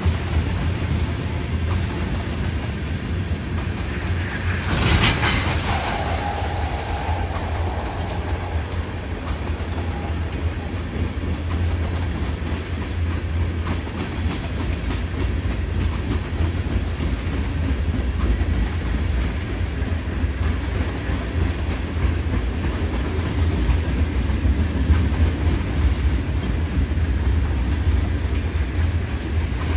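Freight train of tank cars rolling past: a steady low rumble with the wheels clicking over the rails. About five seconds in there is a brief loud burst of noise, followed by a short steady tone lasting a couple of seconds.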